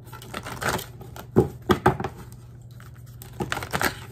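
Tarot cards being shuffled and handled by hand: a string of sharp card slaps and flicks, in loose clusters with short pauses between.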